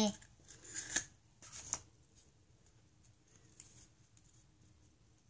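Light plastic clicks and snaps as a Kinder Surprise egg's yellow plastic capsule is pulled open, the loudest about one second and nearly two seconds in, then faint rustling as the small paper pieces of the toy inside are handled.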